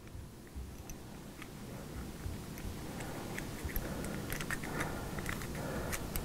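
Small irregular clicks and scrapes of a metal key turning the threaded screw of a Glock 17 CO2 magazine, screwing it down onto a 12-gram CO2 cartridge, with soft hand-handling rustle.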